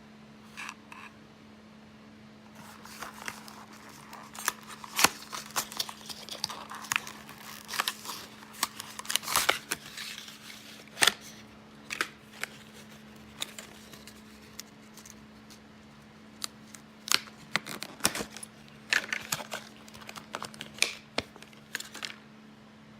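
Small objects and packaging being handled: irregular sharp clicks and taps mixed with short bursts of plastic rustling and crinkling, in two busy spells.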